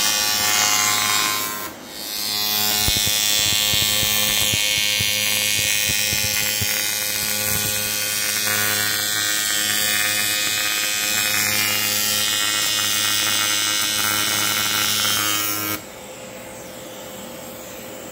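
Electric power tool running steadily, used to make an AC bracket for the engine. It stops for a moment about two seconds in, then runs on until it cuts off shortly before the end.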